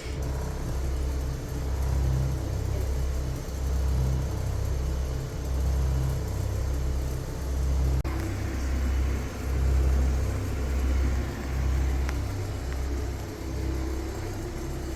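A machine motor switches on abruptly and runs with a low rumble that swells and fades every second or two. A click comes about eight seconds in.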